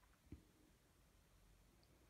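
Near silence: room tone, with one faint low thump about a third of a second in.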